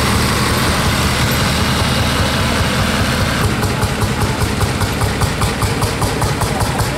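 A red International tractor's diesel engine running steadily as it drives past. About three and a half seconds in, this gives way to the slow, even beat of a Lanz Bulldog's single-cylinder hot-bulb engine, several beats a second, as it approaches.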